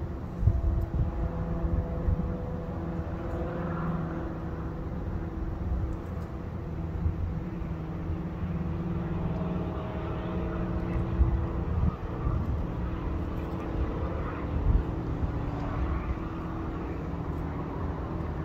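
A steady mechanical drone from a running motor: a hum of several fixed pitches over a low rumble, with a few short bumps.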